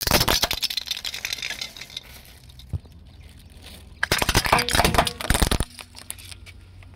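Hollow plastic toy cracking and crunching as a car tyre rolls over it on asphalt, in two bursts of rapid cracks: one at the start lasting about two seconds, and another about four seconds in.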